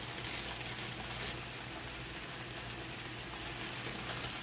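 Stir-fry of pork, onions and bean sprouts sizzling in a hot pan: a steady hiss dotted with small crackles.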